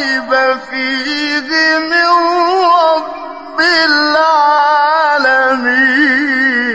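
A man's voice reciting the Quran in a slow, melodic, ornamented style. He holds long drawn-out vowels with wavering pitch, breaks off briefly about halfway, and then goes on.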